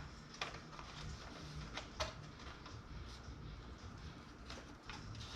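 Light clicks and taps, about six scattered through a few seconds, from hands handling PC parts and cables, over a low steady hum.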